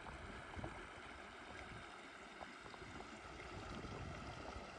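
A shallow stream running over stones, faint and steady.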